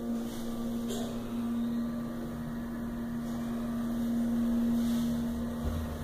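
Armor holeless hydraulic elevator travelling, heard from inside the cab: a steady hum that fades out about five seconds in.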